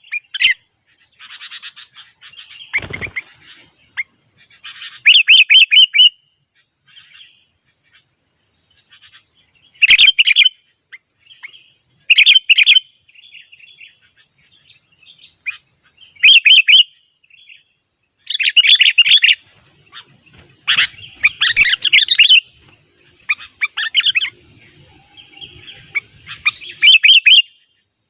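Sooty-headed bulbul (kutilang) singing loud, short bubbly phrases about a second long, repeated every two to three seconds, with softer calls in between.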